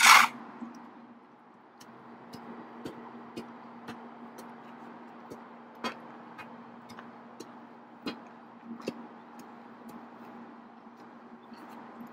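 Steel hand tamping bar pounding moist packing clay around the edges of a rubber home plate, in steady strikes about twice a second. A short, loud scrape opens the sound.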